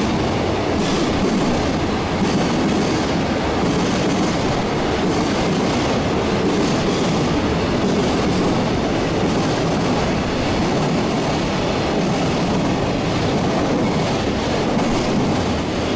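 Freight train running past on the tracks: a steady, continuous rumble of wheels on rail, a bit noisy.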